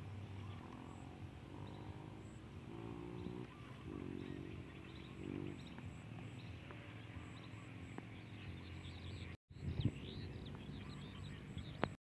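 Faint outdoor ambience: scattered small bird chirps over a steady background hiss. The sound cuts out for a moment about nine seconds in, followed by a few low thumps.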